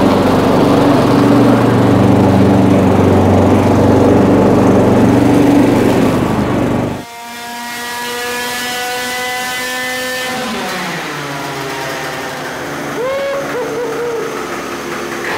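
A small single-cylinder two-stroke moped engine, the Simson S51's, running steadily and loudly, cut off abruptly about seven seconds in. A higher whining tone follows and slowly falls in pitch, with a brief rising and falling warble near the end.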